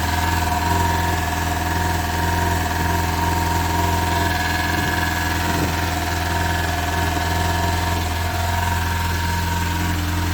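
VAZ-2106 Zhiguli inline-four engine idling steadily, just started after a rebuild.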